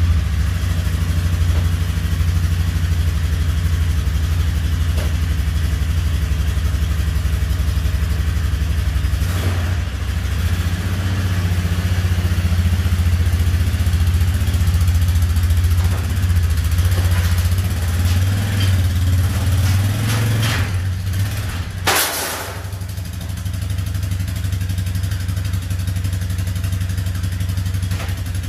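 Polaris Sportsman ATV engine running at low throttle while being driven up onto a utility trailer. There is a brief clatter about 22 seconds in, and the engine runs more quietly after it.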